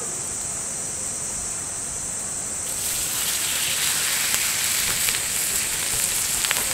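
Thick slices of pork belly sizzling as they are laid on a hot griddle pan over a wood campfire. The sizzle starts about three seconds in and grows louder, with a few light clicks near the end.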